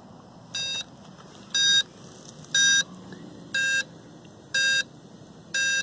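Blade Chroma quadcopter's handheld transmitter sounding a warning alarm after the quadcopter's battery has drained. It gives a short, high electronic beep about once a second, six times.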